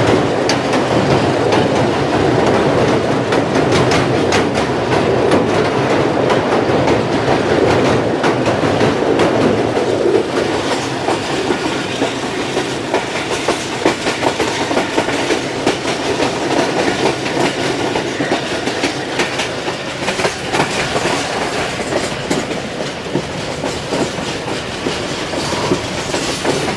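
Pakistan Railways passenger train running at speed, heard from an open coach door: steady wheel-on-rail clatter over the joints, with a heavier rumble for the first ten seconds or so while it crosses a steel truss bridge. Under it runs the chugging of the GE U20 (GU20) diesel-electric locomotive hauling the train.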